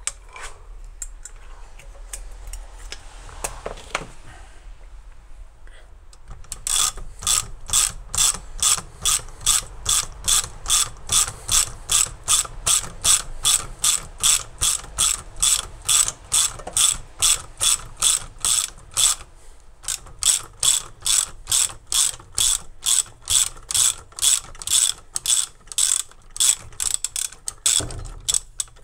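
Hand ratchet clicking steadily, about three clicks a second, as the screw of a gantry-type valve spring compressor is wound on a diesel cylinder head to free the valve springs. Light metal handling noises come first, and the clicking pauses briefly partway through.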